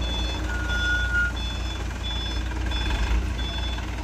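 Truck reversing alarm beeping about three times every two seconds over a diesel truck engine idling, with one longer, lower tone sounding about half a second in.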